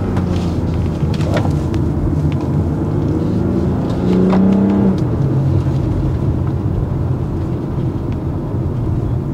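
The BMW X3 M40i's 3.0-litre twin-scroll turbocharged straight-six, with its stock exhaust, is heard from inside the cabin under way. The revs climb, then drop suddenly at an upshift about five seconds in. After that the engine runs steady and eases off toward the end.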